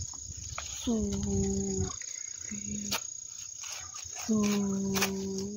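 Crickets trilling steadily, a thin high continuous note, with a voice over it making drawn-out calls that each slide down and then hold one steady pitch: a long one about a second in, a short one, and another long one near the end.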